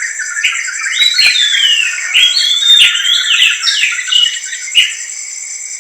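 Birds chirping and calling, with a busy run of short and sliding calls between about one and four seconds in, over a steady high trill of crickets.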